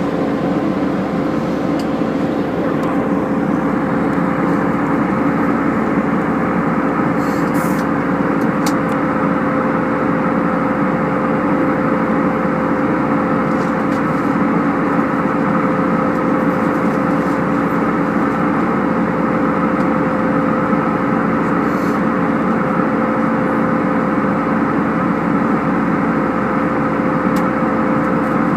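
Steady drone of an airliner cabin in flight: engine and airflow noise with a constant hum, plus a few faint clicks.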